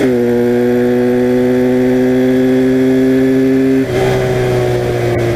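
1982 Honda motorcycle engine running under way at a steady pitch. The note dips and drops slightly right at the start, and dips again about four seconds in.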